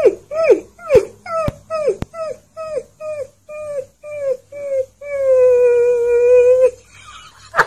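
A fluffy husky-type puppy howling: a run of short falling yips, about two a second, then one long steady howl about five seconds in.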